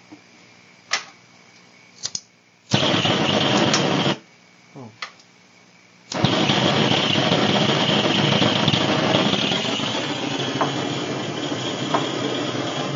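Gas blowtorch being lit: a few clicks, a short burst of hissing gas from the opened valve, then about six seconds in the torch catches, lit with a lighter, and burns with a steady loud rushing hiss.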